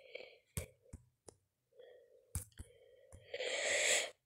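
Irregular taps and clicks of typing on a phone's touchscreen keyboard. Near the end comes a louder, short rush of hiss lasting about a second.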